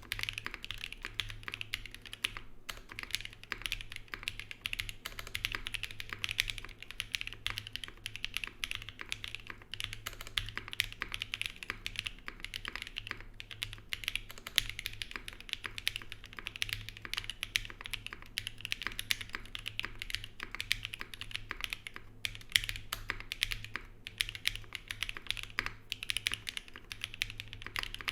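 Continuous fast typing on a gasket-mounted Zoom75 SE mechanical keyboard with lubed KTT Strawberry V2 linear switches, a carbon fibre plate, no foam and GMK keycaps: a dense run of keystroke clacks, broken by a few brief pauses.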